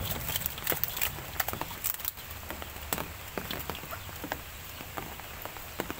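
Freshly caught tilapia flapping and slapping in a metal bowl and on wet mud, an irregular run of wet pats and sharp clicks, several a second.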